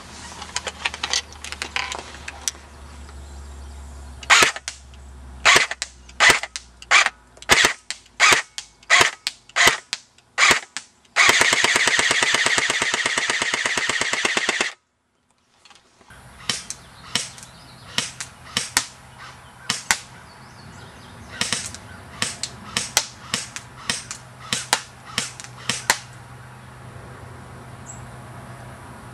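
Airsoft Thompson M1A1 replica firing: single shots about a half second to a second apart, then a continuous full-auto burst lasting about three and a half seconds that cuts off suddenly. After a brief pause, more single shots follow.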